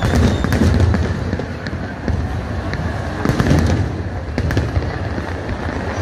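Many aerial firework shells bursting in quick succession: a dense, continuous low rumble of bangs with sharp crackles throughout.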